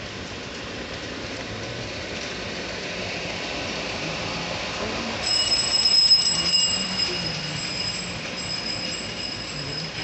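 Street background noise, and about halfway through a steady high-pitched squeal sets in suddenly with a few clatters, loudest about a second later, then slowly fades.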